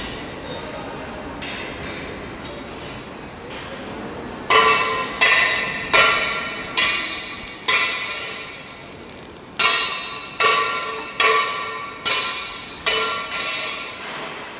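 Steady hiss of a stick-welding arc for about four seconds, then a hammer striking steel plate, roughly one blow every 0.8 s. Each blow rings out and decays, with a short pause midway.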